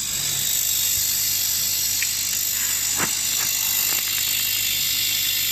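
Steady hiss over a low hum from a 6040 CO2 laser engraving-cutting machine running, with a light click about three seconds in.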